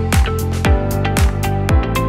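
Background music with a steady electronic beat, about two beats a second, over held tones.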